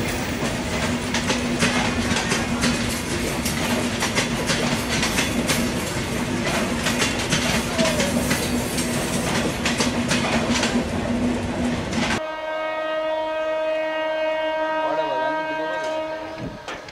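Bangladesh Railway intercity passenger coaches rolling past, their wheels clattering over the rail joints. About twelve seconds in, the rolling noise cuts off suddenly and a long, steady train horn sounds for about four seconds.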